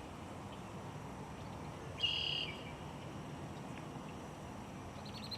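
A single short, high-pitched, buzzy animal call about two seconds in, over a steady low outdoor background. A quick run of high ticks starts near the end.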